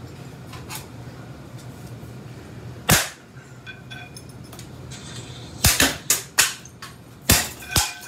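Hard, sharp smashing impacts as a ceiling fan is broken apart: one loud crack about three seconds in, followed by short high metallic ringing, then a quick run of about six cracks in the last two and a half seconds. A low steady hum runs underneath.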